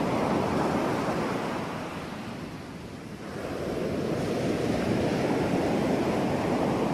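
Ocean surf: waves washing in a steady rush that eases off about two and a half seconds in, then swells back as the next wave comes in.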